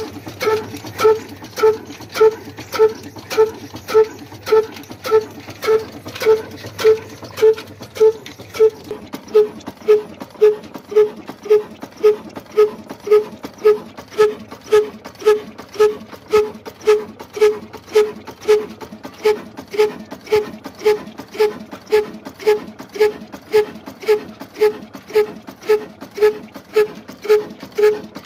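Old 35 HP Ruston Hornsby single-cylinder diesel engine running at a slow, steady speed, with a regular exhaust beat of about one and a half thumps a second. A low hum under the beat fades out about a third of the way in.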